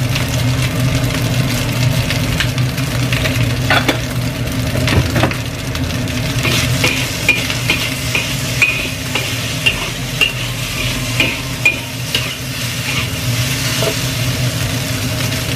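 Metal spatula stirring and scraping fried rice around a wok over a steady frying sizzle and a low hum. From about six seconds in, a quick run of short metallic clinks, two or three a second, as the spatula strikes the wok.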